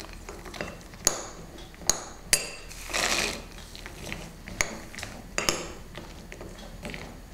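A spoon stirring peanuts into thick gram-flour batter in a glass bowl, clinking sharply against the glass five or so times, with a short stretch of wet stirring in between.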